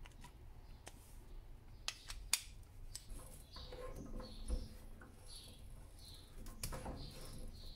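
A few sharp metal clicks as a tap is fitted into its holder, then from about halfway a hand tap cutting a thread into a brass nut, squeaking in short chirps about twice a second.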